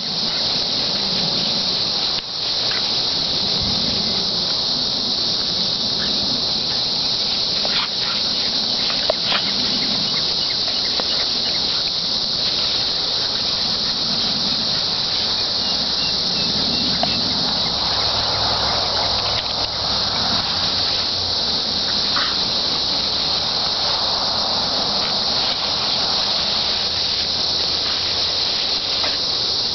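A steady, high-pitched insect chorus runs throughout and is the loudest sound. Beneath it, a pit bull and a pit bull/boxer puppy play-fight in long grass, with soft rustling and scuffling and a few faint clicks.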